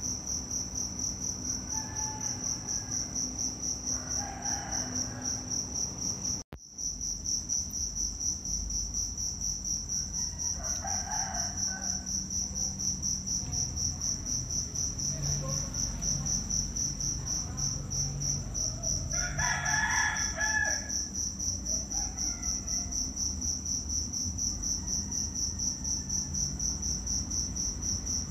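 Steady, high-pitched insect trill pulsing rapidly, with a few brief calls over it, the loudest about two-thirds of the way through.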